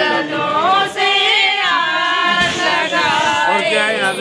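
Several voices singing a wedding song together, with long held notes that slide up and down in pitch.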